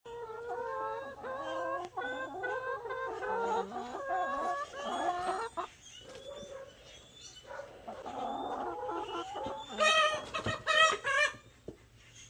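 A flock of hens clucking: a run of short pitched calls from several birds, with a brief lull about six seconds in and the loudest calls about ten seconds in.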